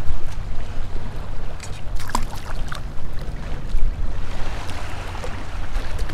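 Wind buffeting the microphone over choppy shallow bay water, with short splashes as a hooked toadfish flaps at the surface on the line.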